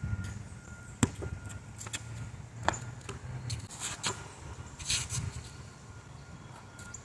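A basketball bouncing on an outdoor court: a few separate sharp bounces, the clearest about a second in and again near three seconds, over a low rumble that fades out midway.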